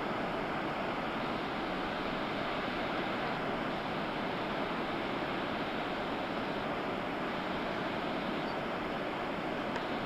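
Steady rush of a tall waterfall pouring down a rock cliff: an even, constant hiss of falling water.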